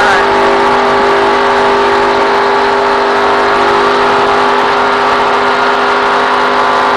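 Stock car's V8 engine running under full throttle at steady high revs, heard loud from inside the cockpit over a constant rush of wind and road noise.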